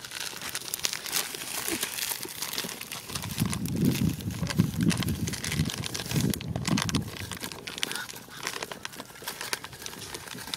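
Wood fire crackling under a clay cooking pot, with a plastic bag rustling as salt is tipped into the pot. A louder low rumbling comes through the middle.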